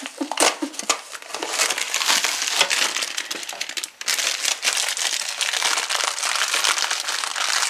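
Crinkling and crackling of a boxed cake mix's plastic inner bag as it is handled and pulled open, with a short break about four seconds in.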